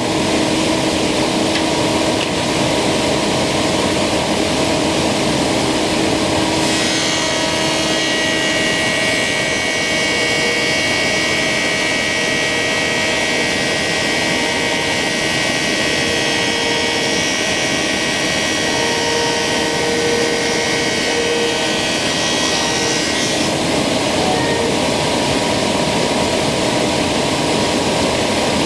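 Thickness planer with a Tersa-knife cutterhead running steadily. From about seven seconds in until about twenty-three seconds a black walnut board is fed through and planed at slow feed, adding a higher ringing tone over the motor's noise.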